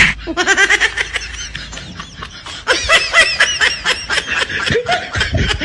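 Laughter: a long run of quick, high-pitched laughing syllables that cuts off suddenly near the end, opening with a sharp smack.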